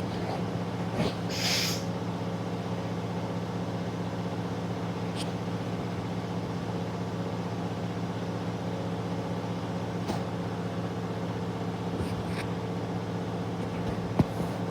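Candy front-loading washing machine in its final spin, set to 1000 rpm after balancing the load: a steady drum-and-motor hum with a few faint clicks and a single knock near the end.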